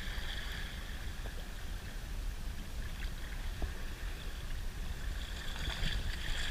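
Water rushing and splashing along a slowly moving small boat, with a steady low rumble of wind on the microphone. A faint steady high whine fades in the middle and comes back near the end.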